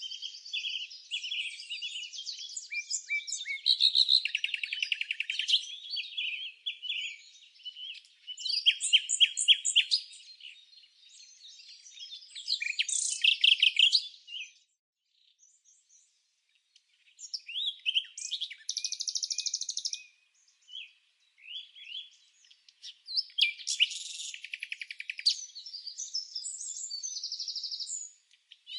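Small birds chirping and singing in quick, overlapping trills and tweets, with a brief lull about halfway through.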